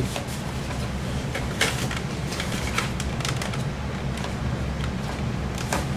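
Scattered light clicks and rustles from hands handling an IDE ribbon cable and its plastic connector at a hard drive in a desktop tower case, over a steady low hum.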